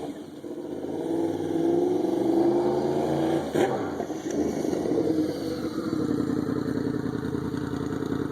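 Ford Shelby GT350's 5.2-litre flat-plane-crank Voodoo V8 pulling in first gear, its note rising for about two seconds, then a sharp crack about three and a half seconds in, after which the engine runs on at steadier revs.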